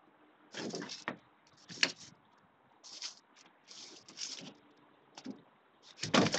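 Irregular rattling and knocking of objects being handled, in several short bursts with a sharp knock near the end.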